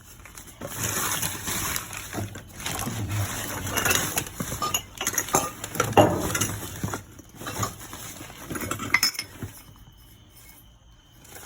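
Hard household items and brass pieces clinking and clattering against each other as they are rummaged through and shifted in a dumpster, with rustling between the knocks. It goes quieter near the end.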